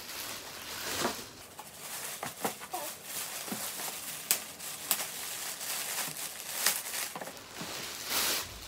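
Clear plastic poly bag rustling and crinkling as it is handled and pulled open around a backpack, with several sharp crackles and a longer burst near the end.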